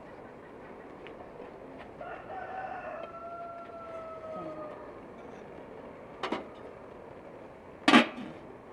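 A rooster crowing once: a long call starting about two seconds in whose pitch sinks slightly toward its end. Near the end come two sharp clanks of a metal pot lid being handled, the second louder.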